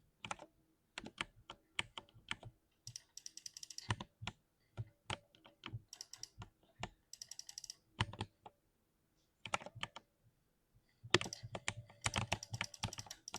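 Typing on a 60% keyboard: irregular key clacks, with quick flurries of keystrokes about three seconds in, about seven seconds in, and a longer run from about eleven seconds on.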